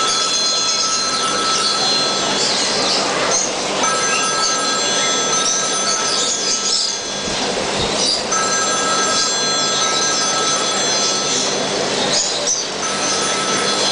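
Aquarium air stone bubbling steadily in the tank water, a loud continuous hiss with little pops on top. Over it, a repeating high electronic ringing, several steady tones together, sounds for about three seconds, pauses for about one, then sounds again.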